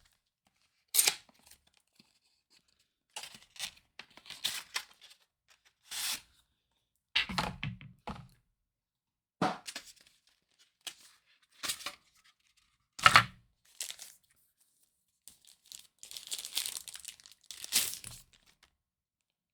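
Phone-case packaging being opened by hand: a series of short tearing and crinkling sounds with a sharp knock about two-thirds of the way through, and a longer stretch of tearing and rustling near the end.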